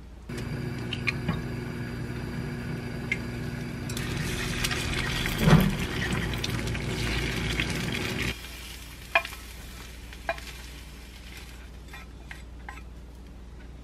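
One egg sizzling in a square nonstick pan on a gas stove as it is stirred with chopsticks into scrambled egg, over a steady hum. The sizzling grows louder about four seconds in and cuts off suddenly just after eight seconds, leaving a few light clicks.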